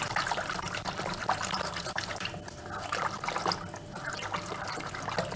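Wire whisk beating a thin liquid of warm milk, oil, egg white and yeast in a bowl: continuous sloshing and swishing with light clicks of the wires against the bowl, stirring until the yeast dissolves.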